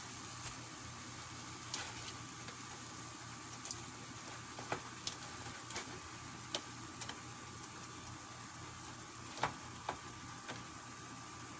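A pan of pancit noodles on the stove giving a steady hiss, with irregular sharp clicks and ticks as shrimp are laid on top; the loudest click comes about nine and a half seconds in.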